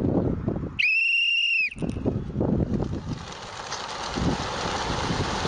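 A whistle sounds once, a steady high note held for about a second, about a second in. From about three seconds in comes the flapping of a large flock of birds taking off together, an even rain-like hiss.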